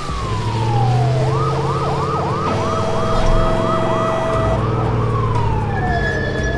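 Added cartoon sound effects for a toy crane truck lifting a car: a steady low engine hum, with an electronic tone over it. The tone glides down, then warbles like a siren about three times a second, then glides down once more near the end.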